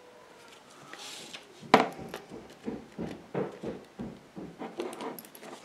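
Handling noise from a plastic laptop battery pack: one sharp click about two seconds in, then a string of light taps and knocks as it is moved against the laptop's aluminium case.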